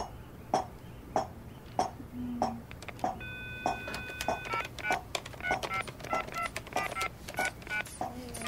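A brass mortar and pestle pounding in a steady rhythm, about one and a half strikes a second. About three seconds in, a telephone dial tone sounds briefly, then a quick run of keypad beeps as a number is dialed on a desk phone.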